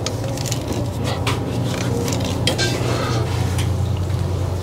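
Hand-held armoured-cable stripping tool being turned around steel-wire-armoured cable to score a ring through the armour wires: irregular metallic scraping and clicking, over a steady low hum.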